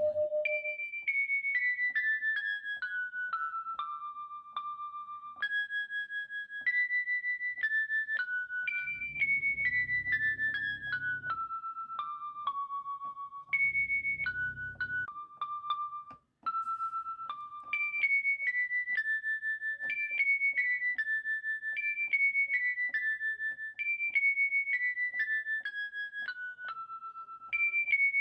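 Background music: a simple keyboard melody of single short notes stepping downward in repeated runs, cutting out briefly about sixteen seconds in.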